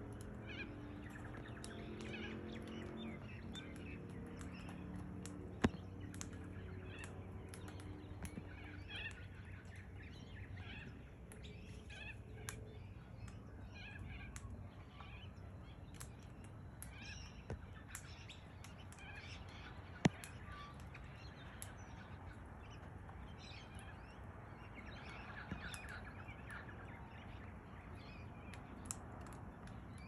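Birds chirping on and off, with scattered sharp clicks, two of them louder, and a low hum that fades out about nine seconds in.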